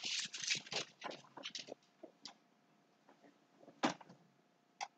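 Marker scratching on a small card in quick short strokes for the first couple of seconds, then a few separate strokes, the sharpest a little before four seconds in.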